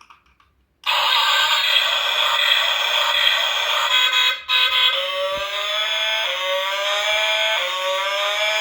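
Toy Lightning McQueen car playing electronic sound effects through its small built-in speaker. A tinny, harsh noise starts about a second in, and from about halfway on it is joined by rising, siren-like whoops that repeat about every second and a half.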